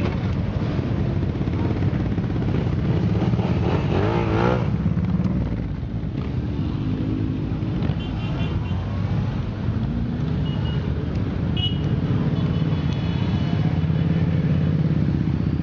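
A procession of many motorcycles passing slowly, their engines running at low speed in a continuous, overlapping rumble, with a brief wavering rise in pitch about four seconds in.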